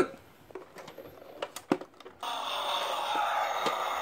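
A few light plastic clicks, then about halfway in a battery-powered toy airplane starts its engine sound, a steady noisy hum that keeps going.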